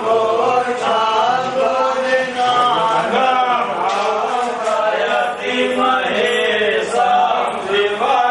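Several male voices chanting Hindu mantras together in a continuous devotional recitation.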